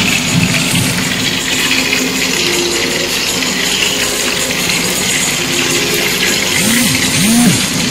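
Hot oil sizzling steadily in a frying pan of beef gola kababs.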